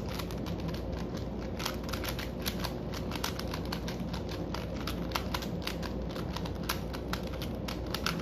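An older-model plastic Rubik's Cube being scrambled: quick, irregular clicking and clacking as the layers are twisted, several clicks a second, over a steady low hum.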